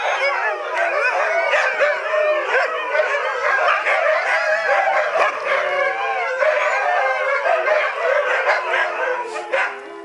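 A pack of huskies howling together, many wavering, rising and falling howls overlapping with some yips. Near the end the howling dies away and the steady tones of church bells ringing come through.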